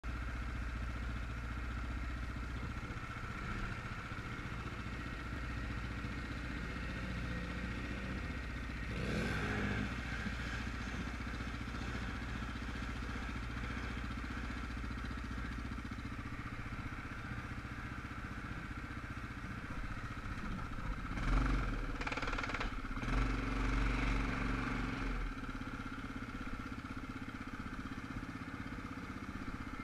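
ATV engine running steadily in flood water, revving up briefly about nine seconds in and again several times in quick succession past the twenty-second mark.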